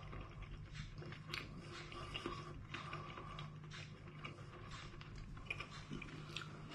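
Quiet, irregular small clicks and ticks of a person eating slow-cooked pork spare ribs, over a faint steady hum.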